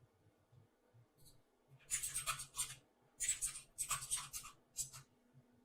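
Faint scratchy rubbing, a hand moving a computer input device across the desk, in a run of short strokes starting about two seconds in and stopping about a second before the end.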